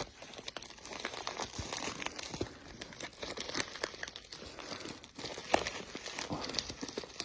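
Shipping package crinkling and crackling as it is handled.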